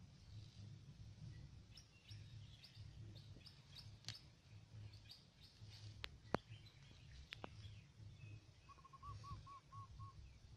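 Faint bird chirps and calls, ending in a quick run of about eight short repeated notes near the end, with a few sharp clicks and a low rumble underneath.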